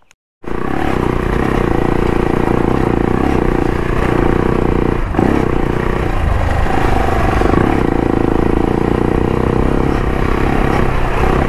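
AJP PR7 adventure bike's single-cylinder engine running steadily while being ridden along a dirt track, with tyre and gravel noise; it starts abruptly about half a second in.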